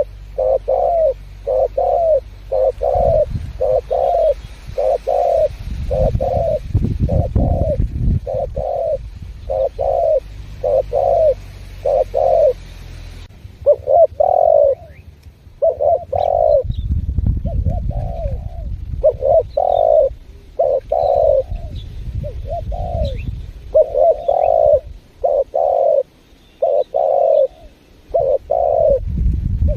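Spotted dove (tekukur) cooing steadily, its low coo notes repeating over and over, well over one a second. A low rumble rises and falls under the calls at times.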